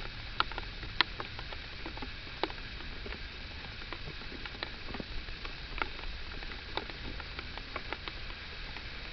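Light rain pattering, with scattered drops ticking sharply at irregular moments, the loudest about half a second and a second in.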